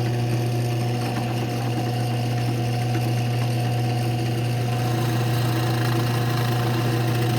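Craftsman 1/2 HP drill press motor running steadily with a low, even hum.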